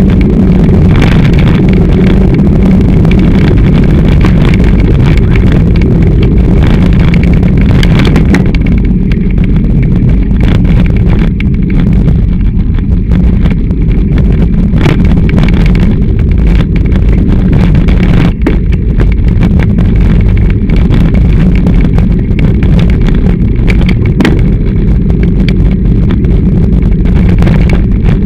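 Heavy, continuous rumble and rattling from a handlebar-mounted camera shaking as the bicycle rolls along the trail, with frequent small knocks from the uncushioned mount.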